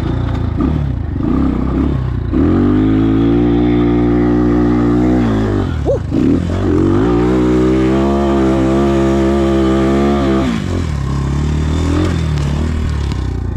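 Single-cylinder engine of a Trailmaster TM33 233cc dirt bike revving up and held at high revs under load for about three seconds, dropping briefly, then held high again for about four seconds before easing back to lower revs, as the bike pulls up a steep grass slope.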